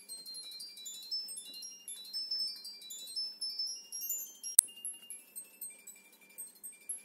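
Background music of quick, high tinkling chime notes in running patterns, with one sharp click a little past halfway.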